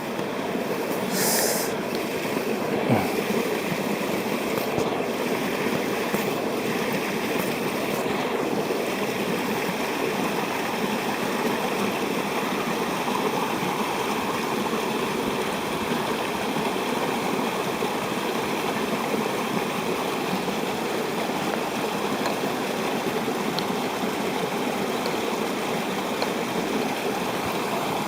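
Mountain stream running steadily, an even rush of water, with a brief higher hiss about a second in.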